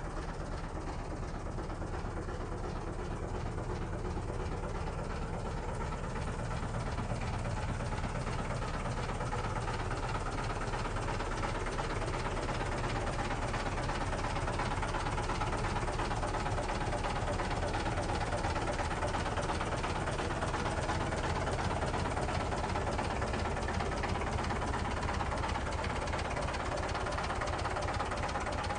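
New Holland (Fiat) 480 tractor's three-cylinder diesel engine running steadily with an even diesel clatter as the tractor drives along, getting a little louder several seconds in.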